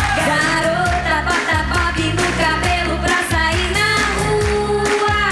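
Pop song with a woman singing the lead over a steady drum and bass beat, holding one long note about four seconds in.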